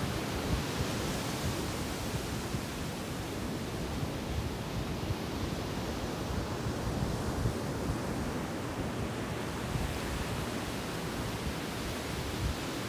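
Sea surf washing onto a beach, a steady rush of breaking waves, with a low rumble of wind on the microphone.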